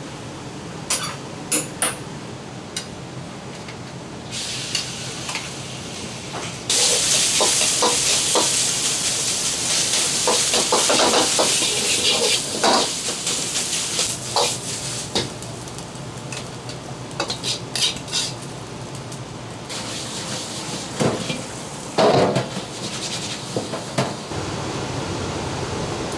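Minced meat stir-frying in a wok: a loud sizzle starts suddenly about a quarter of the way in and later dies down. A metal ladle scrapes and clanks against the wok, with sharp knocks of metal cookware before and after the sizzle.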